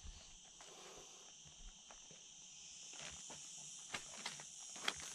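Faint footsteps on stony ground, with scattered sharp clicks that grow louder and more frequent in the second half, over a steady high insect buzz like crickets.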